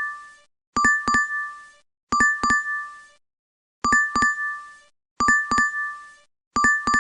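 DoorDash app notification chime repeating: a double ding about every second and a half, in runs of three with a short pause between runs.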